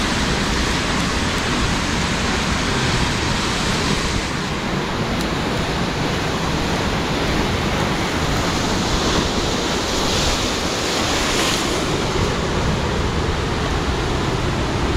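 Ocean surf breaking and washing over rocks: a loud, steady rush of water that swells briefly about ten seconds in.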